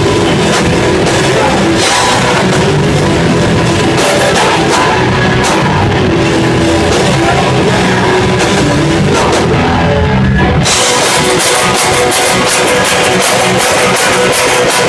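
A hardcore band playing live, with distorted guitar, bass and a drum kit. About ten seconds in, the heavy low end drops out abruptly and the song moves into a thinner, brighter section driven by guitar and cymbals.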